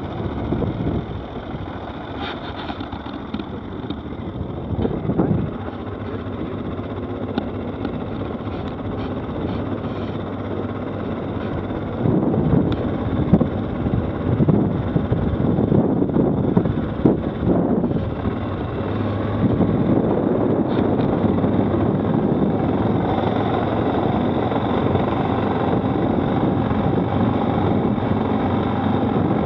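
Stels 800D quad bike's engine running while the quad is ridden, with wind noise on the microphone. About twelve seconds in it gets louder and rougher with uneven bumps for several seconds, then settles to a steadier, slightly louder run near the end.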